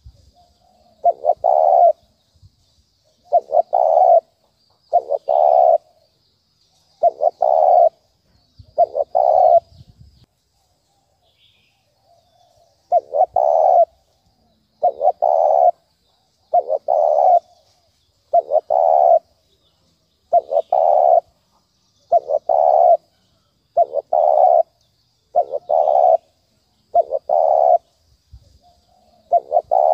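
Spotted dove cooing its insistent 'thúc bổi' call, the call used as a lure for wild doves. Phrases about a second long repeat roughly every two seconds, with a pause of a few seconds about ten seconds in.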